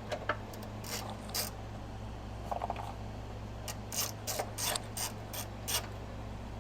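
Hand ratchet wrench clicking in short, irregular strokes while working on the fuel filter's fittings, over a steady low hum.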